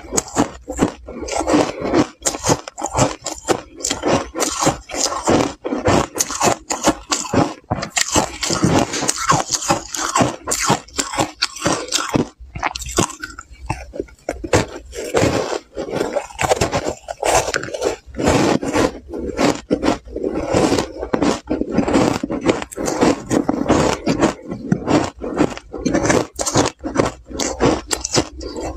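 Close-miked crunching and chewing of ice chunks coated in matcha powder, a dense run of irregular crunches with a brief pause about halfway before the next bite.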